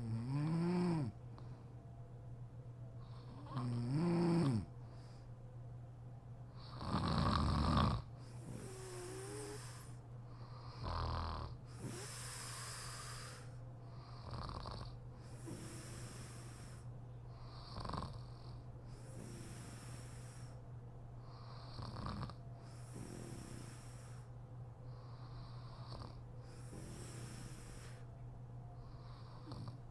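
A sleeping woman snoring. Three loud snores with a pitched, rising-and-falling tone come in the first eight seconds, then softer, breathy snores follow about every four seconds.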